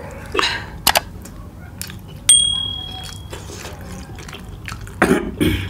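Close-up eating sounds of people biting and chewing large soft chicken taipo momos: wet smacking and small clicks. A little over two seconds in, a single bright bell ding sounds for about a second, the subscribe-button sound effect.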